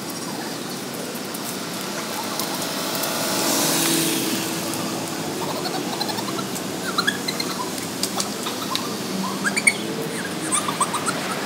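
Street traffic noise with a car passing, swelling to its loudest about four seconds in, then small birds chirping repeatedly through the second half.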